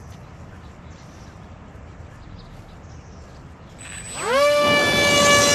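Electric motor and propeller of a small home-built RC airplane throttling up for takeoff. After a few seconds of low background noise, a loud whine rises sharply in pitch about four seconds in and then holds steady at full throttle.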